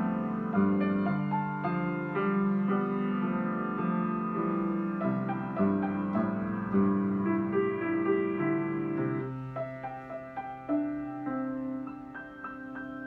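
Grand piano played solo: a flowing melody over sustained bass notes. About nine seconds in the playing thins to scattered higher notes over a held bass and grows quieter.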